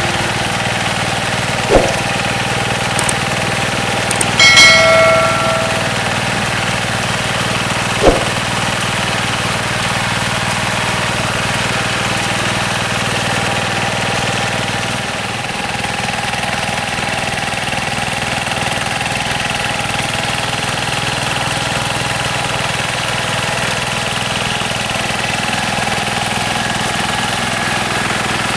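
Yanmar TF105 single-cylinder diesel engine of a two-wheel hand tractor running steadily. Two sharp knocks come about 2 and 8 seconds in, and a short high note with overtones sounds about 4.5 seconds in, the loudest moment.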